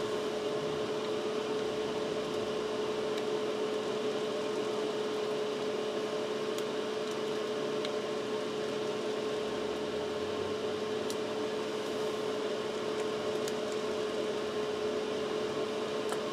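Steady machine hum with one constant tone and an even hiss, like a fan or air conditioner running. A few faint ticks come through from a small screwdriver working the bass's bridge saddle screws.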